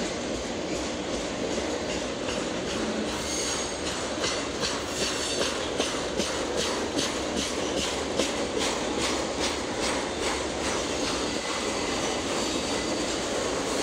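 Norfolk Southern autorack freight train rolling past: a steady rumble of steel wheels on rail, with a run of rhythmic clicks from the wheels crossing rail joints through the middle.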